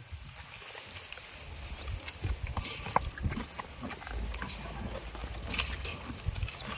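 Goats snuffling and moving about close by, with scattered sharp clicks and knocks and no clear bleat.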